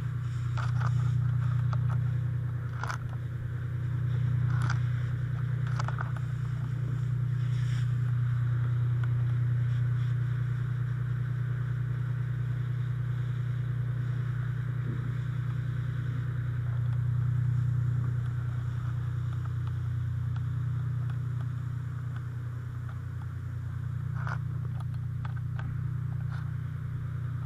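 A fire engine's motor runs steadily as a low hum, with scattered clicks, scrapes and rustles of gear moving against the helmet camera.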